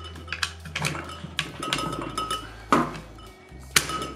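Polymer and metal parts of a GHK G5 airsoft rifle in an SRU bullpup kit clicking and knocking as they are fitted together and handled, a series of sharp knocks with a short ring, the loudest ones in the second half.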